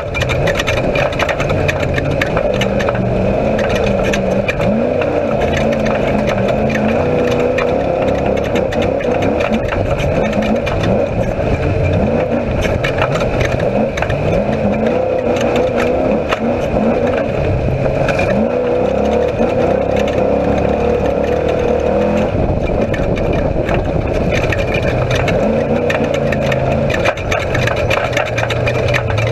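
Off-road race vehicle's engine heard from inside the cockpit, revving up and falling back again and again as it is driven hard over rough desert track, with knocks and rattles from the chassis throughout.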